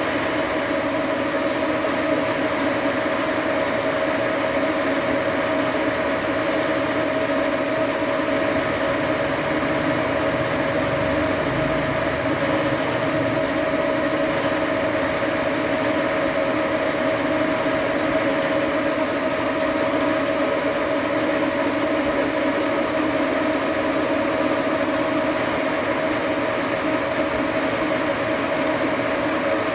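Engine lathe running under cut as its tool turns a metal hose barb for 1½-inch hose: a steady metallic whine with a squealing edge from the cutting tool. A faint high whistle drops out and comes back every few seconds.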